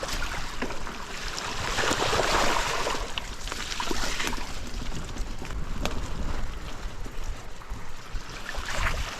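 Rushing water, with wind buffeting the microphone and scattered knocks. The water swells louder about two seconds in.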